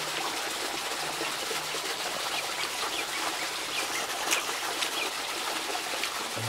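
Outdoor ambience: small birds chirping in short falling calls over a steady background hiss.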